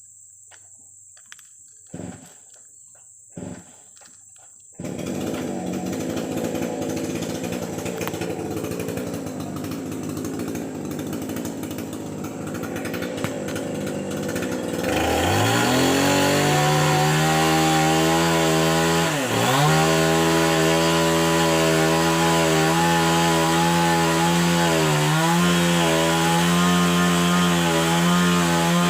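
Two-stroke chainsaw being started: two short sputters, then it catches about five seconds in and runs roughly at idle. About fifteen seconds in it is throttled up to a steady high-speed run, dipping briefly a few times.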